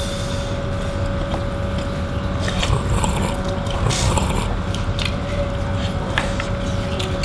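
Eating sounds: spoons clinking against ceramic bowls, slurping of meatball soup, and chewing, as scattered short clicks and slurps over a steady low hum.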